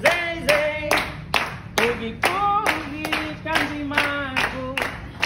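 A group clapping their hands in a steady rhythm, about three claps a second, while voices sing a chant-like melody of long held notes.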